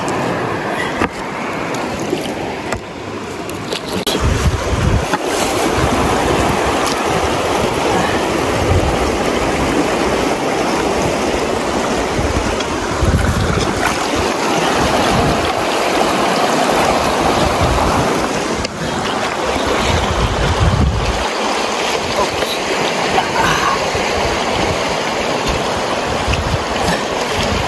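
Rushing river water in a rapid, a steady rush, with wind buffeting the microphone in several low gusts.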